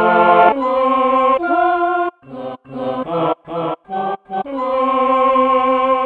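Sampled vintage tape-keyboard choir voices from the Sampletron instrument, played as chords on a MIDI keyboard: three held chords, then a run of about six short stabbed chords, then a long held chord near the end.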